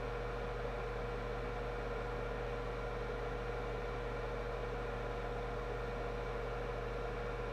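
Steady electrical hum and hiss with a constant mid-pitched tone, unchanging throughout.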